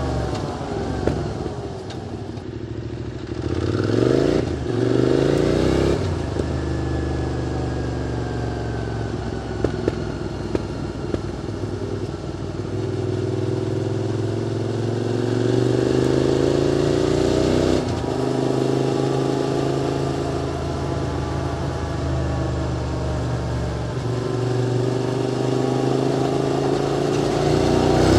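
QJ Motors SVT650X V-twin engine breathing through an aftermarket Arrow Race-Tech exhaust while being ridden. The engine note climbs in several pulls and drops back sharply between them, with a short quick rev near the start.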